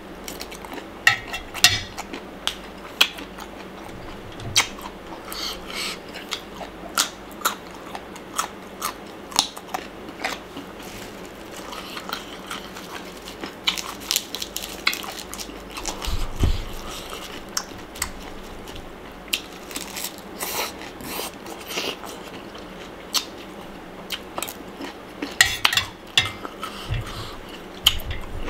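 Chewing and biting into pounded salad with blanched shrimp and crisp raw lettuce leaves: a run of irregular sharp crunches and wet chewing, with now and then a spoon clinking against the metal bowl.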